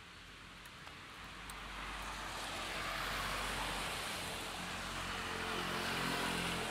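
A car driving past on a rain-wet street: the hiss of its tyres on the wet road swells from about a second and a half in, with a low engine hum under it near the end.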